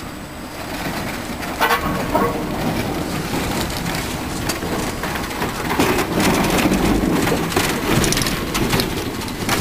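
Historic Standard-type tram rumbling and clattering, with a low steady rumble and bursts of sharp knocks, denser in the second half.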